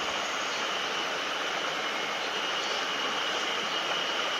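Mountain river water running over rocks: a steady, unbroken rushing hiss.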